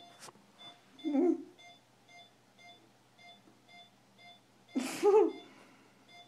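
Patient monitor beeping steadily about twice a second, a pulse beep that follows the patient's heartbeat. A person makes two short muffled vocal sounds over it, the louder about five seconds in.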